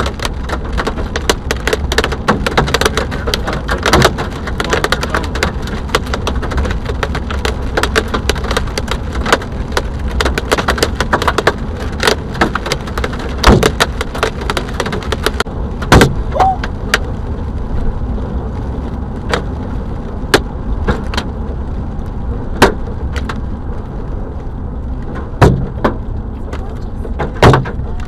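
Hailstones striking a moving car's roof and windshield: a dense clatter of sharp knocks that thins to scattered single hits about halfway through, over steady road rumble from the car.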